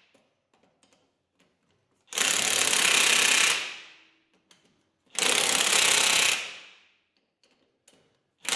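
Impact wrench driving lug nuts through a torque rod set for 100 ft-lb, hammering in bursts of about a second and a half: two full runs and a third starting right at the end, with small clicks of the socket between them.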